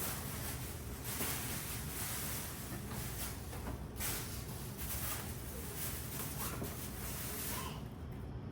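Groceries being handled and put away: faint rustling and light handling noises over a steady low hum.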